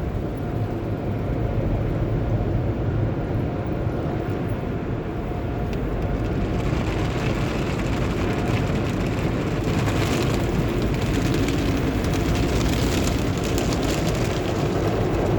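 Automated tunnel car wash heard from inside the car: a steady low rumble of the wash machinery, with water spray on the car growing louder and hissier about six seconds in.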